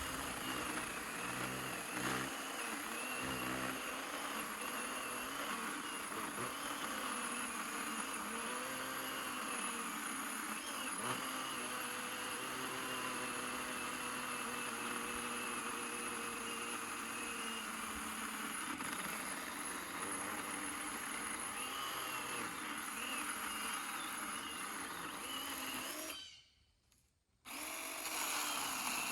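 SORAKO 20-volt battery chainsaw with a 10-inch bar cutting into a pine trunk. Its electric motor whine wavers in pitch as the load on the chain changes. It stops for about a second near the end, then starts again.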